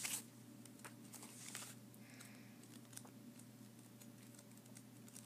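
Faint scattered clicks and soft rustles from a field guide being handled and leafed through, over a faint steady hum.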